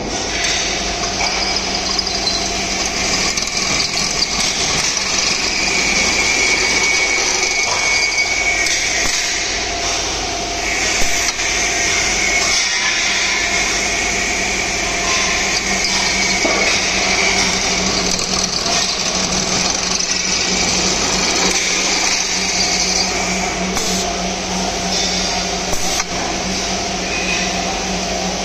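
Automatic pipe-drilling machine running: electric-motor drill spindles boring holes through a steel scaffolding pipe, a steady machine hum with a high whine that shifts in pitch and breaks off a few times. A single sharp click about eleven seconds in.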